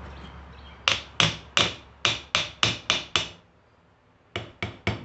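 Hammer tapping a steel pin through the holes of a hitch-receiver bar, metal on metal: eight even strikes about three a second, a short pause, then three quicker taps. The pin is a tight fit.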